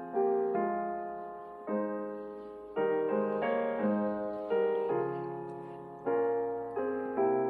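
Slow, gentle solo piano music: chords struck about once a second, each left to ring and fade.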